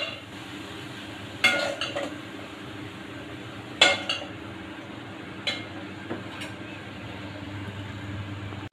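Metal spoon scraping and clinking against a metal pan and a stainless-steel lunch box as cooked beans are spooned from one to the other: a handful of sharp clinks, the loudest about four seconds in.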